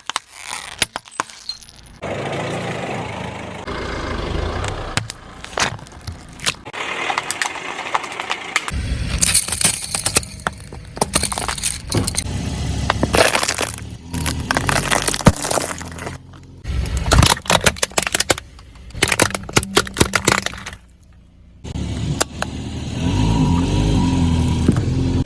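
A car tyre rolling over and crushing brittle objects such as soda cans and bottles, giving a run of crunches, cracks and pops over the low rumble of the car.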